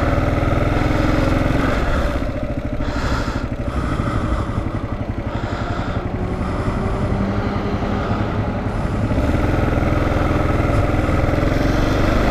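Kawasaki KLR650's single-cylinder four-stroke engine running as the motorcycle rides along at low town speed. The engine note drops back about two seconds in, then rises again as the bike picks up speed.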